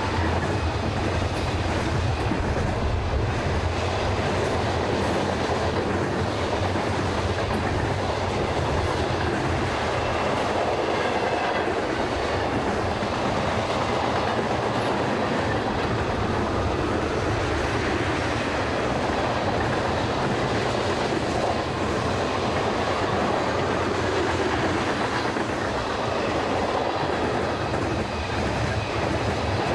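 Freight cars of a mixed freight train, mostly tank cars and covered hoppers, rolling past close by. The steel wheels run on the rails, making a steady, even noise throughout.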